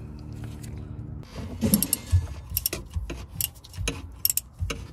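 Ratchet wrench clicking in quick, uneven bursts as it is worked back and forth on a plug of a Mercedes W124's rear differential, after a low steady hum in the first second or so.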